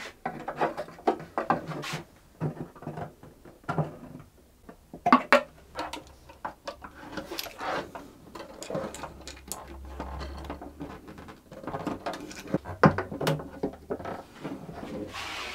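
Handling sounds of a cello being reassembled: the soundpost is set with a setter, and the tailpiece, strings and bridge are fitted. Irregular sharp wooden clicks, taps and small string rattles come against the body.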